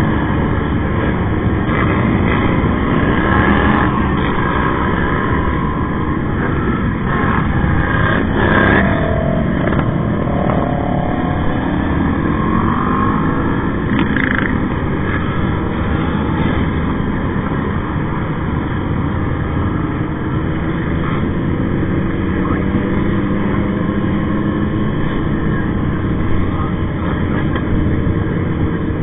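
Motorcycle engines of a large group ride, heard from a moving sport bike over steady wind and road noise, with engine notes rising and falling now and then as riders work the throttle.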